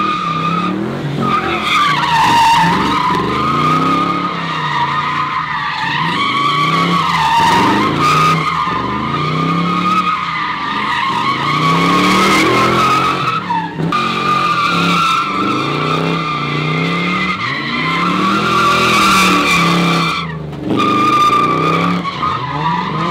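Ford Mustang convertible doing donuts: its rear tyres squeal in one steady high screech while the engine revs rise and fall over and over. The squeal breaks off briefly twice, once about halfway through and once near the end.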